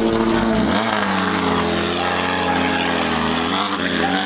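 Off-road race car engine running loud, its revs dipping and rising: a dip about half a second in, steadier through the middle, and a rise again near the end.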